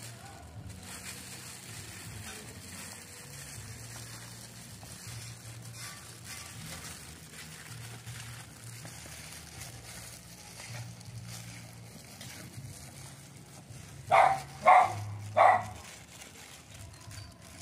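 A dog barks three times in quick succession near the end, over a low steady background hum.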